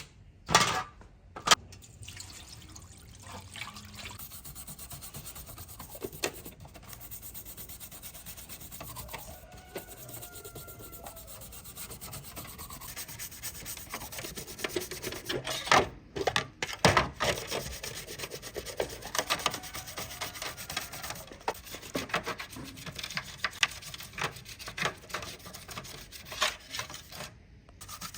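Steady rubbing of an abrasive over a hard surface, like hand sanding, broken by scattered knocks and taps, the loudest a few together about halfway through.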